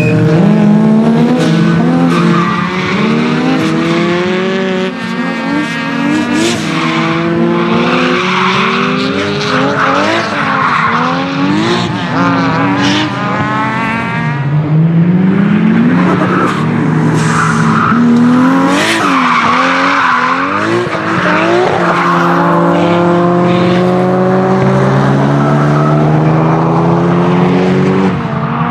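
Nissan Skyline GT-R R32's single-turbo RB26DETT straight-six revving up and down repeatedly as the car powerslides, with tyres squealing through the slides. A few sharp pops from the exhaust cut through.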